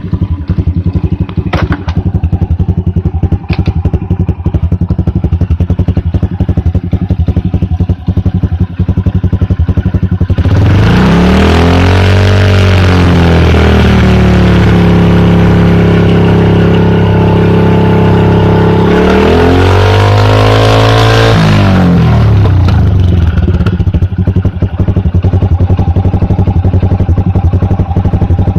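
Honda Super Cub 90's single-cylinder four-stroke engine through a Moriwaki titanium Monster muffler: idling with a fast, even exhaust pulse, then revved up about ten seconds in and held at high revs, dipping and rising again, before dropping back to idle a little after twenty seconds.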